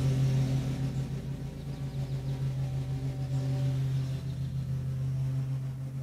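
A motor or engine running steadily: a low, even hum with overtones.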